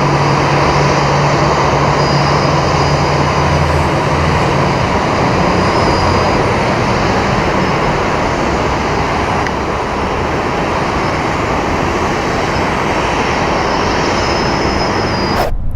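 Loud, steady rushing roar with a low hum under it for the first few seconds, cutting off abruptly just before the end.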